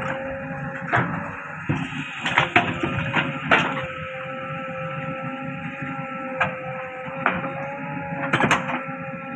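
JCB 3DX backhoe loader working, with a steady whine and several irregular knocks and clanks.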